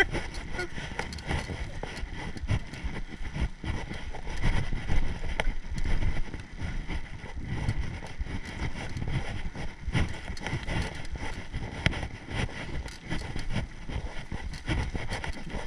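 Mountain bike being ridden over a rough dirt trail: wind buffets the action-camera microphone in low, gusty rumbles, with frequent short knocks and rattles from the bike over bumps.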